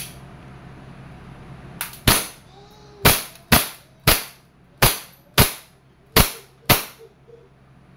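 EMG Pit Viper gas blowback airsoft pistol firing eight single shots, each a sharp crack. They start about two seconds in and come unevenly, half a second to a second apart.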